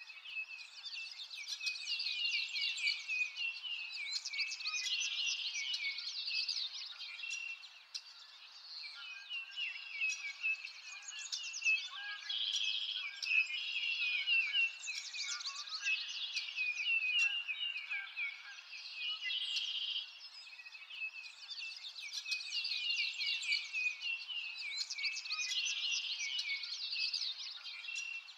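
Dense chorus of many small songbirds chirping and trilling over one another, high-pitched.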